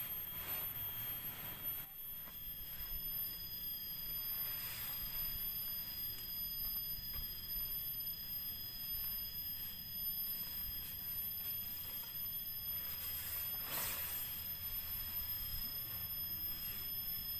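Steady, high-pitched insect calls holding constant pitch, with a second, higher call joining a few seconds in. Wind rumbles on the microphone, and brief rustles of the nylon flysheet come as it is pulled over the frame.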